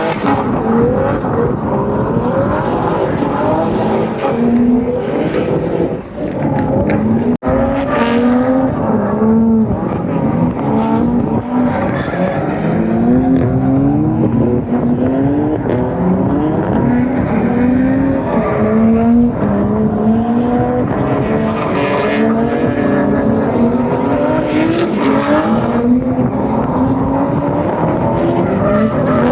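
Drift car engine revving hard, its pitch climbing again and again about once a second, with tyres squealing as the car slides.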